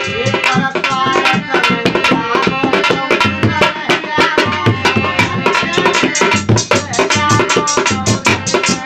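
Rajasthani folk instrumental: a dholak played in a fast, driving rhythm under a sustained harmonium melody, with the metallic clatter of a chimta.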